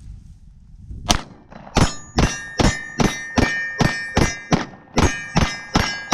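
Rapid pistol fire from a Glock: about a dozen shots fired as fast as possible, starting about a second in at roughly two to three shots a second, with a metallic ringing hanging between the shots.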